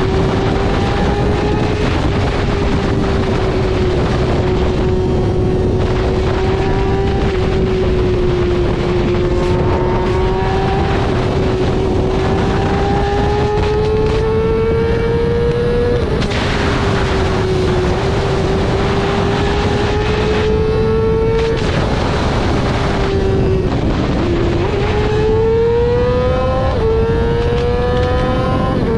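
Yamaha R6 sport bike's inline-four engine running at high revs under way, its pitch climbing slowly and dropping sharply at upshifts about three times in the second half, under a steady rush of wind noise.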